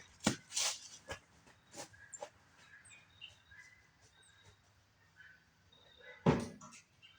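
Faint birds chirping outdoors, with a few knocks in the first couple of seconds and one louder short noise about six seconds in.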